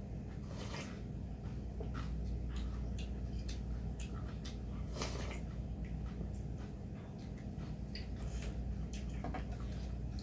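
Eating sounds: slurps of ramyeon noodles and broth, two longer slurps about a second in and near the middle, among many short clicks and mouth smacks, over a steady low hum.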